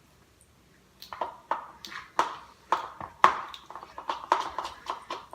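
Spoon clinking and scraping against a bowl while stirring cornstarch into a yogurt slime mixture, in quick strokes about two a second, starting about a second in.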